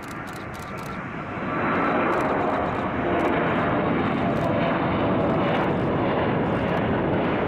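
Airplane engine noise: a steady rush with a faint whine, swelling about a second and a half in and then holding steady.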